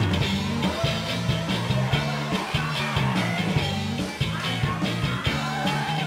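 Rock music with a steady beat and a bass line that steps between notes.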